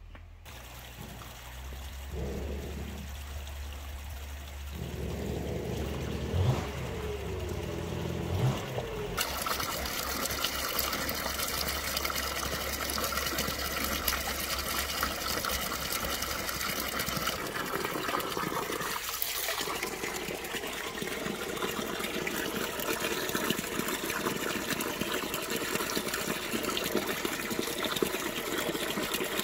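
Water running and splashing steadily. It is softer at first and comes in fully about nine seconds in.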